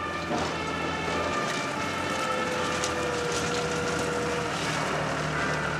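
Diesel construction machinery, an excavator and a wheel loader, running with a steady engine hum. A held whine comes in the middle, with some scattered clatter.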